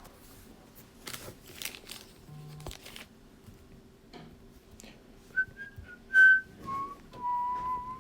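A person whistling a short run of notes that step down in pitch and end on one longer held note, after some brief rustling and handling noise.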